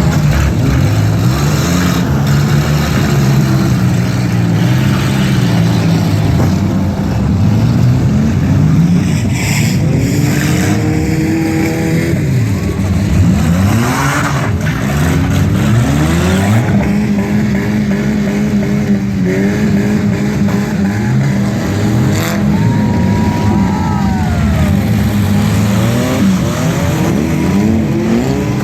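Several demolition derby car engines running and revving at once, their pitches rising and falling against each other, with a few sharp knocks in between.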